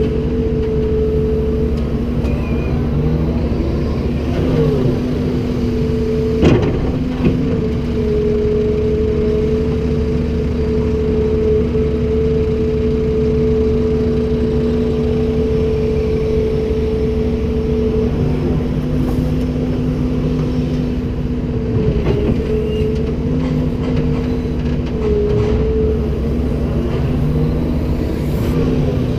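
Komatsu PC290-10 excavator working: the diesel engine and hydraulics run steadily with a constant whine whose pitch shifts slightly as the load changes. A pair of sharp knocks comes about a quarter of the way in.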